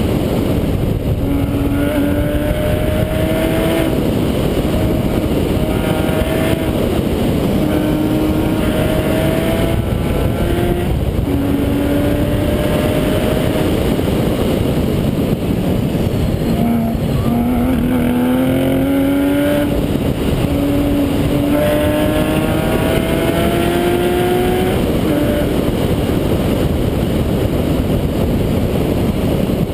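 Porsche 911 GT3 RS flat-six engine driven hard on a race track, its pitch climbing through the revs and dropping at each gear change or lift, over and over. A constant rush of noise runs under it.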